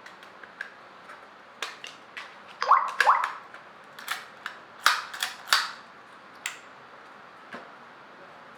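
About a dozen sharp clicks and snaps in an irregular run from the fingerprint glass door lock being handled, the loudest in two pairs around the middle.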